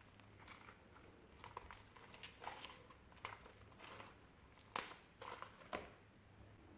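Slime being mixed: quiet, irregular sticky squelches and small pops, about ten in all, the loudest a little past halfway.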